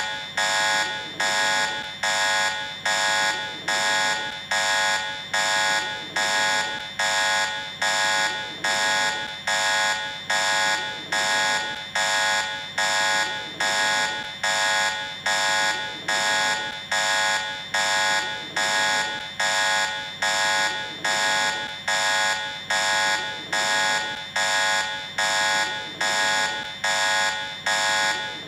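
Electronic medical-emergency call-in alarm: a bright, multi-tone beep repeating evenly a little more than once a second, each beep fading slightly before the next, over and over without change.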